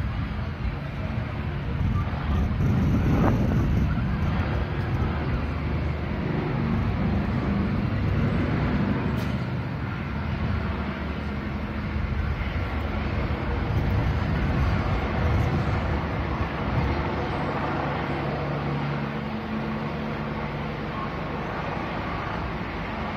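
Steady low rumble of outdoor urban street noise, with faint voices in the background.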